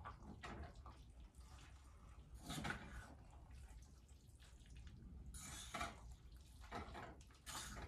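A fork tossing wet spaghetti in a metal pot of sauce: faint wet swishes and a few scrapes of the fork against the pot, loudest about two and a half seconds in and again near the end.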